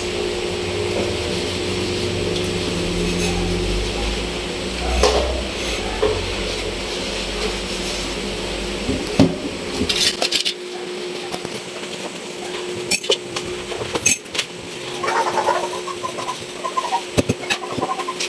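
Dishes being washed by hand in a stainless steel sink: a steady wash of noise for about the first half, then scattered clinks and knocks of plates and cups against the sink.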